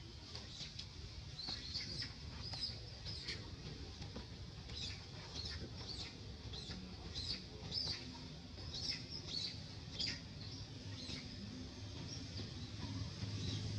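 Birds chirping, short high calls repeated every second or so, with scattered quick clicks over a low background rumble.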